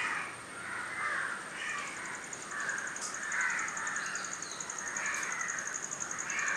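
Crows cawing repeatedly in the background, one call after another at irregular intervals, with a high, fast-pulsing trill joining about two seconds in.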